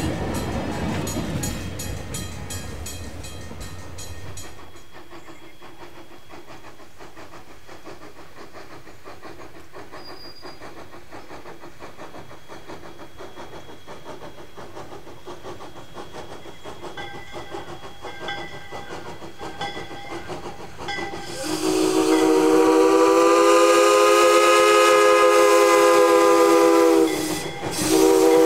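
Rumble and clatter of passing railroad cars fading away, then the Jeddo Coal 85 steam locomotive's faint chuffing as it approaches. About three quarters of the way through, its steam whistle sounds a loud, long chord of several tones. It stops briefly and sounds again near the end.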